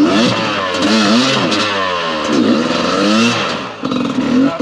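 Dirt bike engine revved up and down in a string of throttle blips, its pitch rising and falling about once a second.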